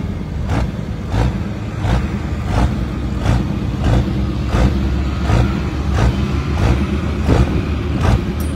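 John Deere farm tractor's diesel engine running steadily while hitched to the pulling sled, with a sharp regular click about every two-thirds of a second over it.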